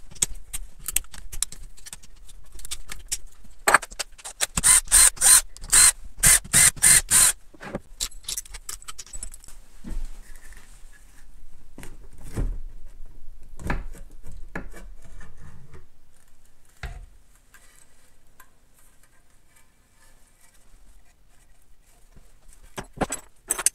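Metal clicks and clinks of a hand tool working the clutch-cover bolts on a small 50cc pit bike engine. About four seconds in comes a run of roughly nine sharp clicks, a few a second. Later there are a few duller knocks as the side cover is worked loose.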